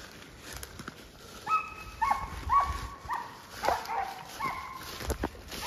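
A squirrel-hunting dog barking about six times in quick succession, each bark a short, clear, held yelp.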